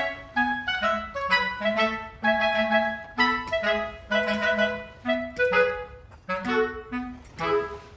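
Background music: a woodwind melody, clarinet-like, played in short, separate notes.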